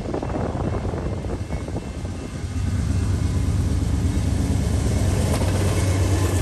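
BNSF diesel freight locomotives approaching and passing close at speed: a deep, steady engine drone with rumble that grows louder about two and a half seconds in.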